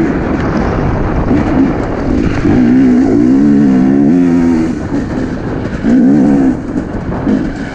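Husqvarna enduro dirt bike engine under way on a gravel trail, its pitch rising and falling repeatedly as the throttle is opened and closed, with a climbing rev in the middle and another short burst of revs near the end.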